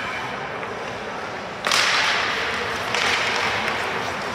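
Ice-hockey skates scraping hard across the ice: a sudden hissing scrape starts about a second and a half in, and another comes about three seconds in.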